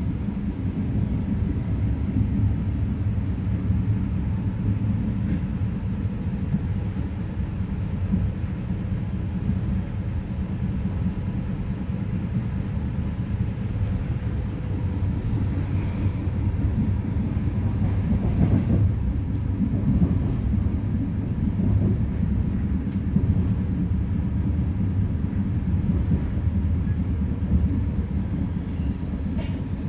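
Passenger train running, heard from inside the carriage: a steady low rumble of the wheels on the track.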